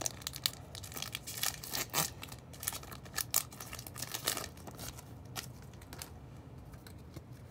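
Foil Pokémon booster pack wrapper being torn open and crinkled: a run of crackles and rips that dies down after about six seconds.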